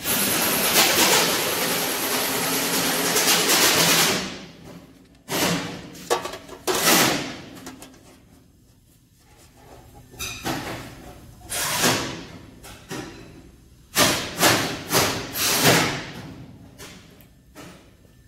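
Hand work on aluminium sheet-metal intake parts on a steel bench: a steady rushing noise for about the first four seconds, then irregular sharp knocks and thuds in small clusters as the metal pieces are tapped and handled.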